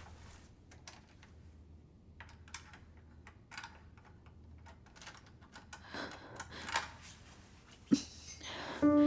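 Soft clicks and rattles of a door handle and latch being worked carefully, mixed with the rustle of a puffer jacket and backpack, with a sharper click just before the end.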